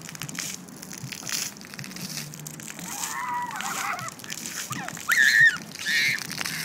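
A toddler's high-pitched squeals, three of them from about three seconds in, the loudest about five seconds in, over the steady hiss of splash-pad fountain jets.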